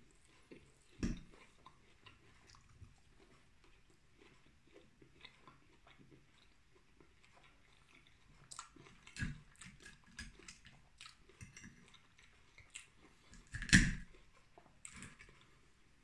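Close-up chewing of grilled pork neck and fries, with small mouth clicks scattered throughout. A few louder sharp knocks stand out, the loudest near the end.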